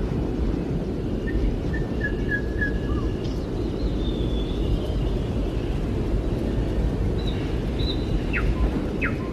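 A steady low rumbling noise, with faint small-bird chirps and short high whistled notes scattered through it, a few of them sweeping quickly downward near the end.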